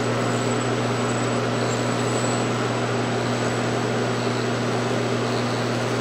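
Spindle of a CNC knee mill running steadily, a constant hum with a thin high whine over it.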